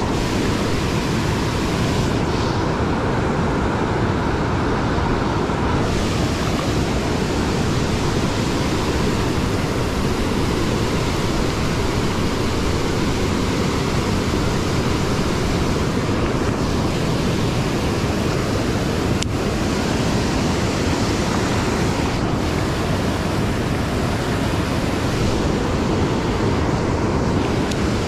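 Steady rush of river water spilling over a low concrete weir into whitewater.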